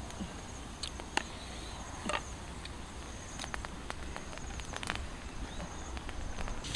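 Rural outdoor ambience: a steady high insect trill with a scatter of short, sharp clicks and snaps.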